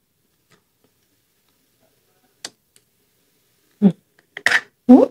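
Close-miked eating sounds of someone chewing fried pork with rice: quiet at first with one small click, then from about four seconds a quick run of sharp, wet mouth smacks.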